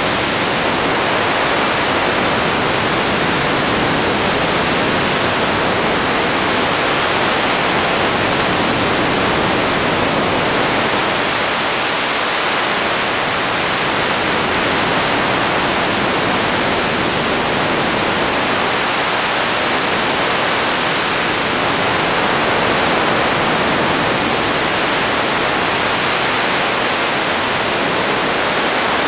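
Radio static: a steady, even hiss of noise between stations, with no tones or voices breaking through.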